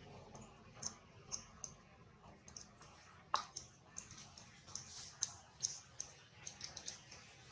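Faint, irregular high-pitched clicks and ticks, sometimes several a second, with one sharper click a little before the midpoint.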